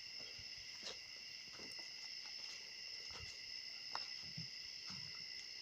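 Steady high-pitched insect chorus, several pitches held at once, with a few faint scattered clicks.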